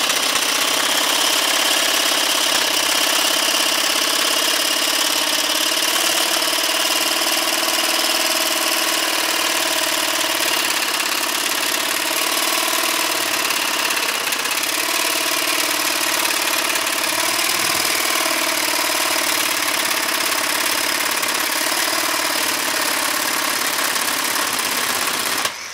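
Ryobi reciprocating saw with a Lenox bimetal demolition blade running steadily at about half power, cutting through a steel deck screw. It stops just before the end.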